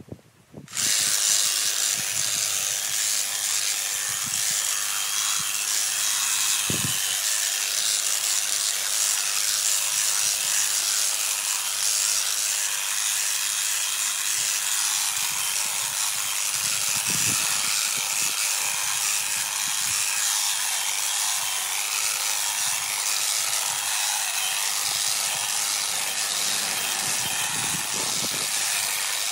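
Honda HHH 36 AXB cordless battery hedge trimmer switching on about a second in, then running steadily as its reciprocating blades cut through a dense hedge.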